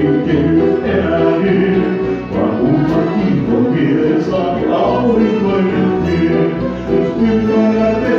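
Music with singing over a regular bass beat.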